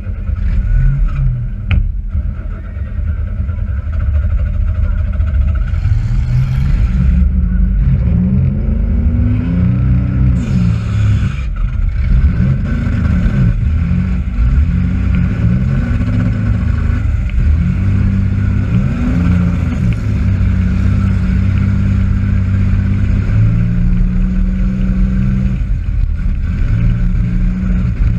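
Demolition derby car's engine heard from inside the cab, revved up and down again and again, then held at steady high revs, with a sharp knock about two seconds in.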